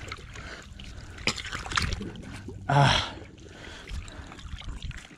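Wet slush and crushed ice crackling and sloshing as a landed trout is handled beside an ice-fishing hole. A short exclamation falling in pitch comes a little before halfway through and is the loudest sound.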